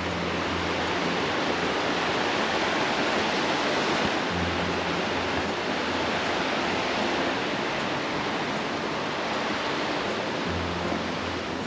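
Steady rushing of river rapids: water pouring over rocks in an even, unbroken hiss.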